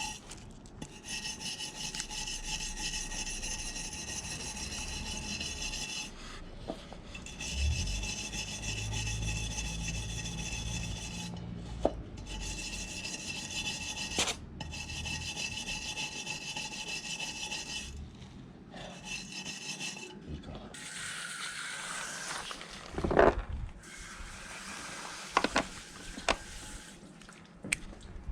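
A steady rasping scrape runs in long stretches of several seconds with short pauses between them, like a hand tool worked over a part. Several sharp knocks follow in the last few seconds.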